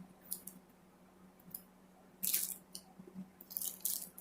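Trading cards and pack wrappers being handled: a few short crinkles and rustles, the loudest a little past two seconds in and a quick cluster near the end.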